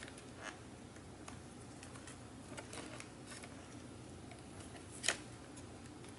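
Faint, scattered small clicks of a pry tool working at a microphone glued to a laptop's logic board, with one sharper click about five seconds in.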